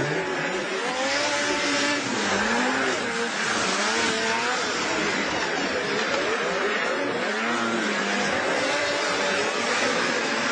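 Several racing snowmobile engines revving, their pitch sweeping up and falling again over and over as the sleds accelerate and back off, over a constant hiss of noise.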